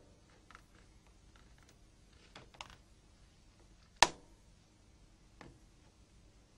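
Plastic snap clips of a Nokia 6600's front cover clicking loose as a plastic pry tool is worked along the seam: scattered faint ticks and a few clicks, then one sharp snap about four seconds in and a softer click near the end.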